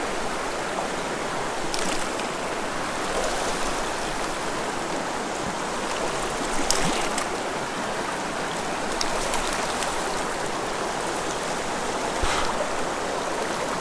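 Shallow, rocky creek rushing over stones in a steady wash of water. A few short sharp sounds sit on top of it, the clearest about halfway through and near the end.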